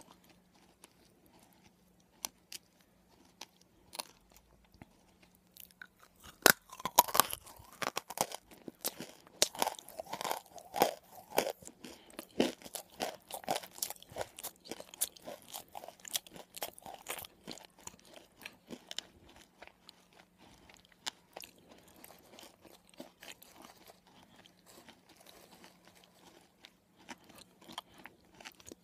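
Close-up mouth sounds of someone crunching and chewing a hard, gritty substance. A few faint clicks come first. Dense, loud crunching starts about six seconds in, then eases to softer, slower chewing in the second half.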